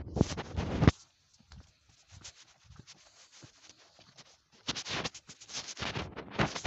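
Irregular scuffing and rubbing of footsteps on a dry dirt path, with a loud rubbing burst in the first second, a near-quiet stretch, then dense scuffing again from about four and a half seconds in.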